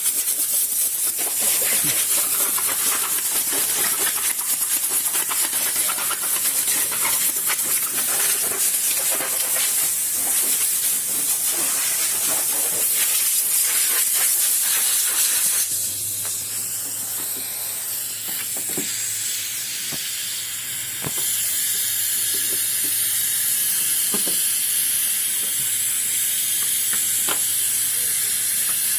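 A steady, loud hiss of air or spray with a few light knocks. About halfway through it drops a little and a low hum comes in, then the hiss rises again a few seconds later.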